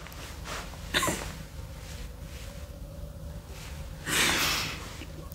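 A person's breathing: a quick sharp sniff about a second in, then a snorting laugh, stifled behind a hand, just after four seconds.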